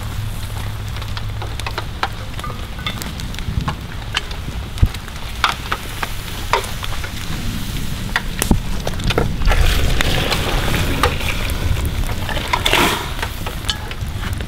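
Wood campfire crackling with sharp pops under a steady hiss, and a louder stretch of hissing and splashing about ten to thirteen seconds in as boiled meat is tipped from a cast iron Dutch oven into a pot of simmering broth.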